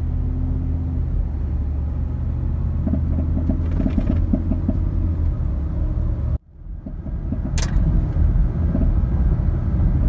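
Ford 5.0-litre V8 heard from inside the truck's cab, pulling under load at about 2,000 rpm with intermittent popping, like a backfire on acceleration, sometimes likened to a popcorn maker. The popping comes from a leaking direct-injector seal on cylinder number 6, though no misfire is logged. The sound breaks off briefly about six and a half seconds in, and a sharp click comes about a second later.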